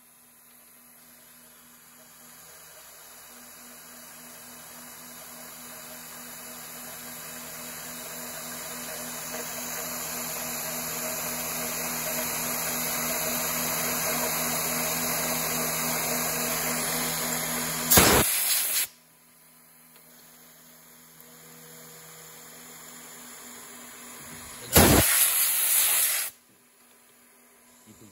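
CNC knee mill cutting a metal plate: a steady spindle hum under the hiss of the mist-coolant spray and the end mill's cutting noise, which grows gradually louder over the first half. Two brief, much louder bursts come about two-thirds of the way in and again near the end.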